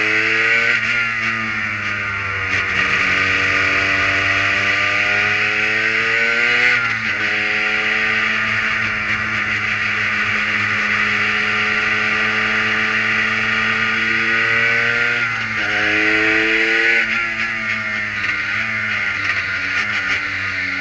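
Prototype race car's engine heard from the cockpit under hard driving, its pitch climbing, dropping sharply at an upshift about seven seconds in, climbing again, then jumping up at a downshift about fifteen seconds in. A steady hiss of wind and wet-track spray runs under it.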